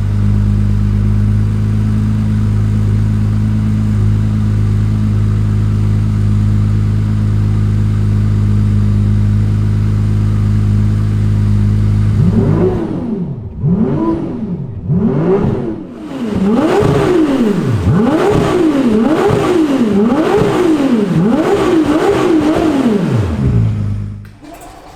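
Car engine idling steadily after a cold start. About halfway through it is revved in about a dozen quick throttle blips, roughly one a second, each rising and falling in pitch, before the sound cuts off near the end.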